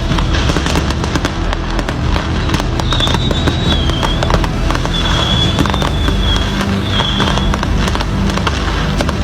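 Fireworks going off: rapid crackling pops throughout. A high wavering whistle comes in about three seconds in and again for a couple of seconds past the middle.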